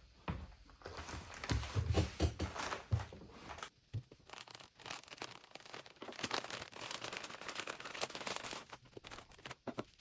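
Product packaging being handled and opened by hand: crinkling and tearing with scattered clicks, and several dull thumps in the first few seconds.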